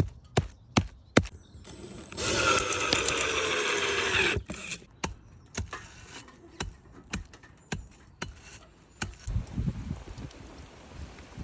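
Thatching work: sharp, evenly spaced knocks of a tool striking thatch, about two or three a second, stop after about a second. About two seconds in comes a loud rasping burst lasting about two seconds, followed by light scattered taps.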